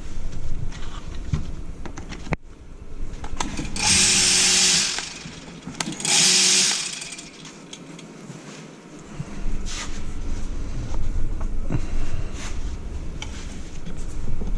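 Two short bursts of a small power tool running, about a second each and with a loud hiss, amid knocks and clinks of work on a machine.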